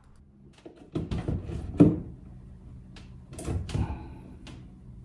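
Clicks and knocks of hands working at a breaker panel, switching a breaker on and taking up a clamp meter and its test leads. The sharpest snap comes about two seconds in, and a brief rattle follows a little after three seconds.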